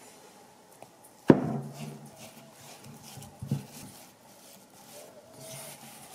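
Kitchen knocks on a counter: one hard knock about a second in that rings briefly and low, then a lighter knock a couple of seconds later, with faint scraping between them.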